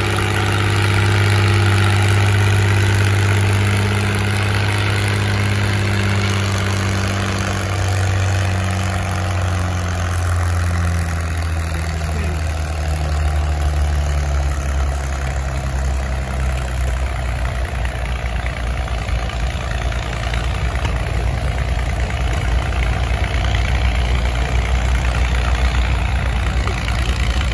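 Farm tractor engine pulling a weighted sled at a tractor pull. Its pitch sags slowly over the first half as the engine lugs down under the building load, then it settles into a deeper, rougher rumble.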